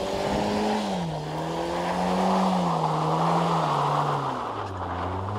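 Peugeot 405 Mi16x4's 16-valve four-cylinder engine revving as the four-wheel-drive car slides on snow, the revs rising and falling several times. Near the end the revs drop to a lower, steadier note as it eases off.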